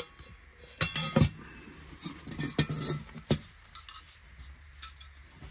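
Stainless steel cook pot and windshield of a Pathfinder M40 cook kit being handled, clinking and knocking against each other: a quick cluster of clinks about a second in, then single metallic knocks a couple of times later.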